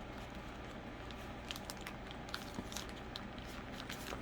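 Scattered small plastic clicks and rustling as a diamond-painting tray is worked out of a soft fabric toolkit bag, over a steady low hum.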